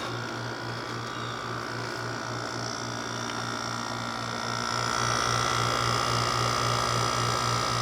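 Haier HWR06XC3-T 6000 BTU window air conditioner running, with a low compressor hum that throbs about four times a second, fan noise, and a steady high whine. It gets a little louder about five seconds in.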